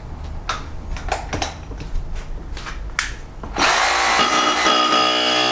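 Electric rotary hammer being test-run: a few knocks and clicks of handling, then about three and a half seconds in the tool is switched on and runs loudly with a steady high motor whine.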